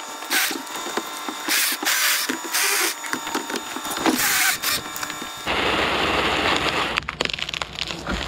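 Tree branches scraping and crackling against the aerial bucket in a run of short rasps. From about five and a half seconds in comes a steady low mechanical rumble with hiss: the bucket truck's boom in motion.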